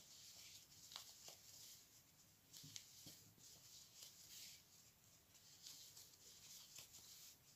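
Faint rustling of velvet cord yarn worked with a crochet hook as single crochet stitches go in, with a few light clicks.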